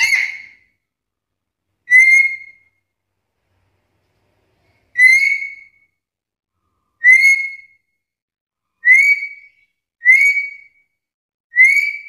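Black-capped lory giving a short whistle that rises and then levels off, repeated seven times at uneven gaps of one to three seconds.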